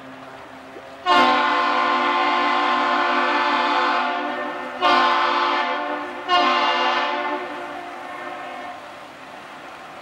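Great Lakes freighter's horn sounding three blasts: a long one starting about a second in, then two shorter ones, the last trailing away near the end.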